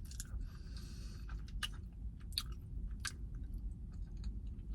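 A person chewing food, with scattered short mouth clicks and crunches over a low steady hum.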